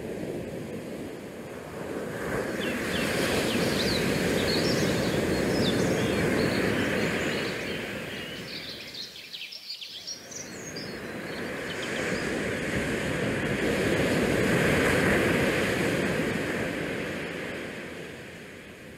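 Wind buffeting an action camera's microphone on a cruise ship's open deck, with the rush of the sea. It swells and eases in two long gusts, dipping briefly about halfway through. A scatter of faint short high squeaks comes a few seconds in.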